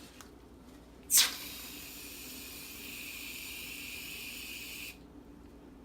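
Aerosol can of Barbasol shaving foam being sprayed: a sharp spurt about a second in, then a steady hiss for nearly four seconds that cuts off suddenly.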